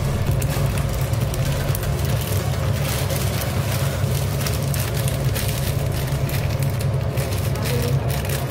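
Pot of water with chicken heating on a gas burner: a steady rumbling noise with fine crackling throughout.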